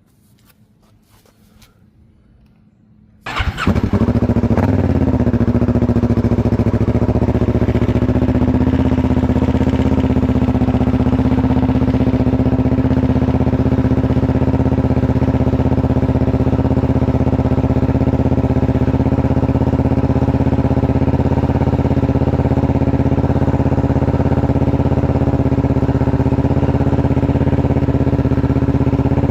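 Kawasaki Ninja 650 parallel-twin engine, fitted with an aftermarket slip-on exhaust, starting about three seconds in after a few faint clicks, then settling into a steady idle.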